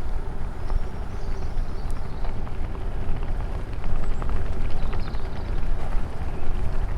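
Bicycle riding along a rough country lane: a steady low rumble of wind on the microphone and tyres on the road, with scattered small clicks from twigs and grit under the wheels and faint birdsong above.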